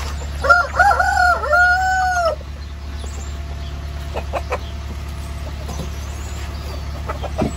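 A rooster crows once, a call of about two seconds near the start, followed by scattered soft clucks and small clicks from hens feeding.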